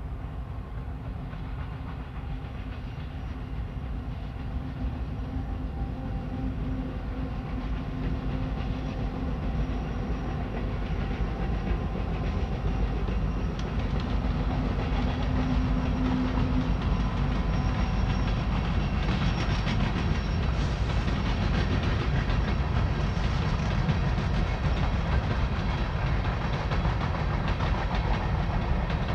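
Union Pacific diesel freight locomotives approaching and passing, their engines running with a steady hum that grows louder for the first dozen seconds. After that, loaded freight cars roll by in a dense rumble with many quick wheel clicks over the rails.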